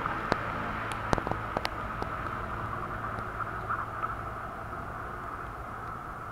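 Steady hum and hiss of an electric train, with a handful of sharp clicks in the first two seconds.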